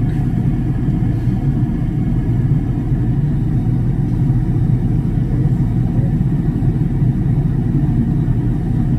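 Firefighting helicopter with a bucket slung below, flying overhead: a steady low rumble of rotor and engine.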